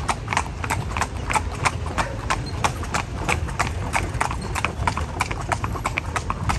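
Hooves of a carriage horse clip-clopping on a hard street in a quick, continuous run of strikes, over a steady low rumble.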